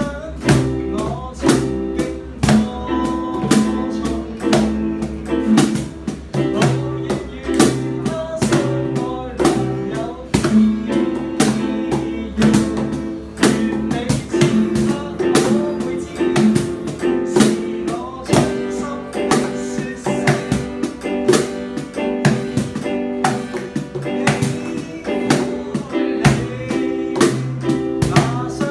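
A cajón hand-drummed in a steady beat, with sharp slaps cutting through, under strummed guitar chords in a small band jam.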